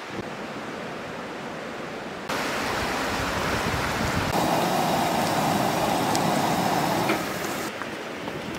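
Steady rushing of a shallow creek flowing over rocks, getting louder and fuller about two seconds in, with a few faint clicks.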